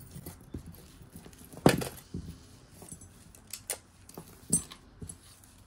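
Scattered light clicks and clinks of a costume-jewelry necklace being handled, with one louder knock a little under two seconds in.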